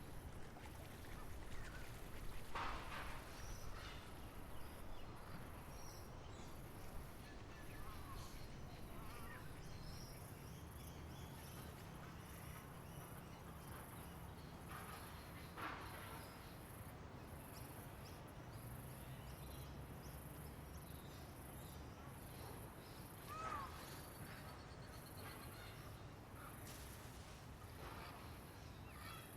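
Outdoor nature ambience: a few scattered bird calls, louder about three seconds in, midway and near the end, over a high insect buzz that pulses about once a second and a steady low drone.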